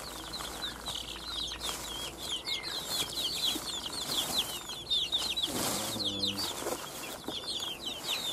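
A flock of young village chickens peeping steadily in short, high chirps. About two-thirds of the way through, a lower, longer call stands out over the chirping.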